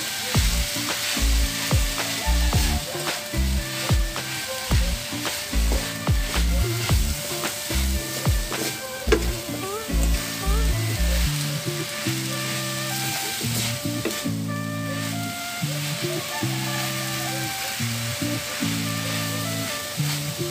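Grated young coconut and sugar sizzling in a frying pan as a wooden spatula stirs and scrapes through it. Background music plays along with it, its steady low beat dropping out about halfway.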